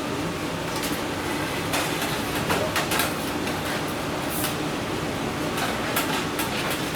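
Steady workshop hum with scattered light metallic knocks and clanks, the sound of sheet metal being handled.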